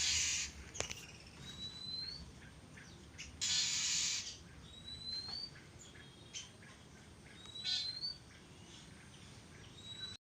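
Birds calling: a thin, short rising whistle repeating about every three seconds, scattered short chips, and two loud hissing bursts about a second long.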